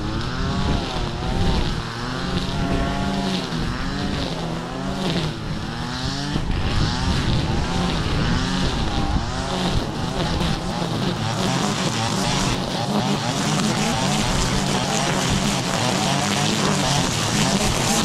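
Fendt tractor engine running as the tractor drives along. Its pitch rises and falls repeatedly through the first half, then settles into a steadier drone.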